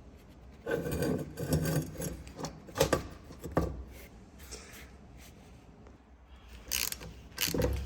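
Metal parts of a bench vise scraping and knocking together as the sliding jaw is worked back into the body. There is a burst of rubbing and clunks in the first few seconds, a quieter pause, then more knocks near the end.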